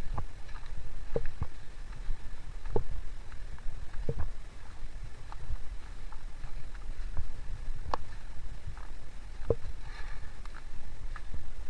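Footsteps on a hiking trail, a short thud about every second or so, over a steady low rumble on the microphone.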